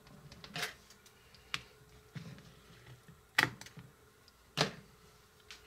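A few light, separate clicks and small knocks, about four spread out with faint rustling between them.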